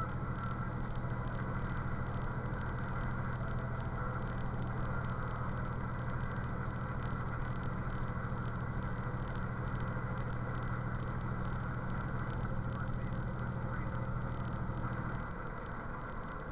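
Truck engine droning steadily, heard from inside the cab, with road noise over it. The low engine note fades about fifteen seconds in and the sound gets a little quieter.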